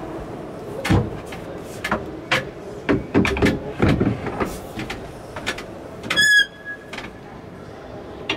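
Wooden fold-down saloon table being raised and set up by hand: a series of knocks and clatters of wooden panels and a metal table leg, with a short high squeak about six seconds in.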